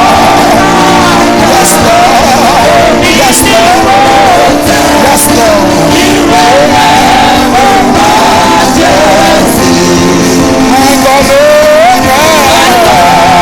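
Live gospel praise music: a singing voice with wavering, ornamented pitch over sustained backing instruments, loud and continuous.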